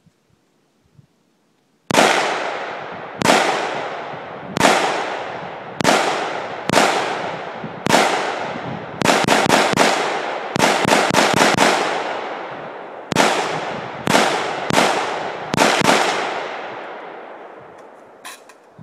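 AR-15 rifle fired semi-automatically, about twenty shots: single shots roughly a second apart, then two quick strings of rapid fire in the middle, then a few more spaced shots. Each shot rings out with a long echoing decay.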